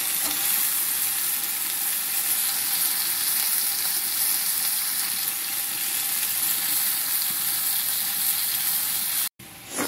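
Steady frying sizzle from a kadai where Malabar spinach, potato and other vegetables have just been added on top of a fried spice paste and fish head. It cuts off abruptly near the end.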